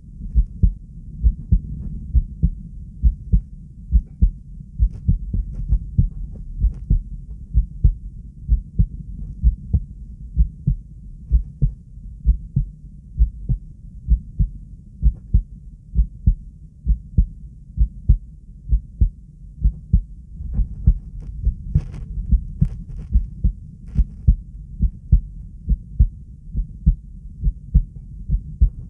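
Strong, slow heartbeat, each beat a pair of low thuds repeating at an even pace: a controlled bradycardia.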